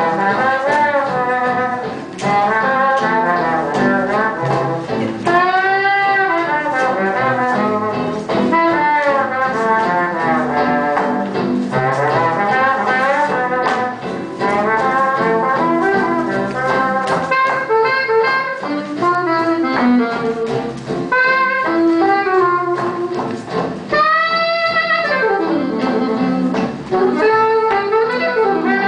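Swing jazz with a brass section of trumpets, trombones and saxophones, its horn phrases swooping up and down in pitch over a steady accompaniment.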